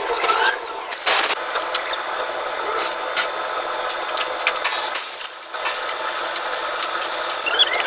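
Drilling-rig floor noise while drill pipe is being run: a steady machinery din with several sharp metallic clanks and knocks scattered through it.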